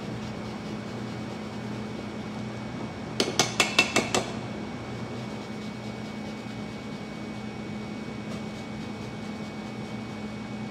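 About six quick, ringing metal taps in a row, lasting about a second, a little over three seconds in: a handheld lemon zester knocked against a stainless steel mixing bowl, over a steady low hum.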